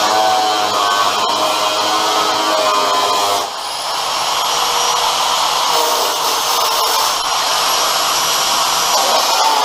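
Power cutting tool running under load as it cuts the edge off the sheet-metal truck door: a loud steady hiss. Its pitch wavers for the first few seconds, then it settles into a steadier tone with a thin high whine.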